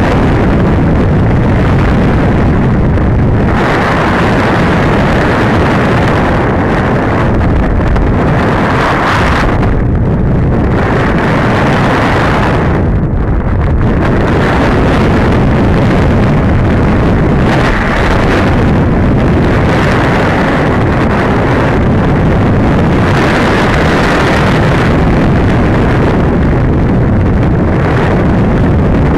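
Wind rushing loudly over the onboard camera of an RC sailplane in gliding flight. It is a steady hiss with no motor tone, swelling and easing every few seconds as the glider banks and turns.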